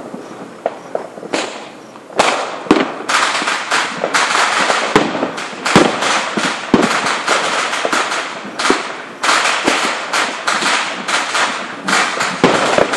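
Aerial fireworks exploding in quick succession, sharp bangs over dense crackling. A few scattered bangs open, then from about two seconds in it becomes a near-continuous barrage.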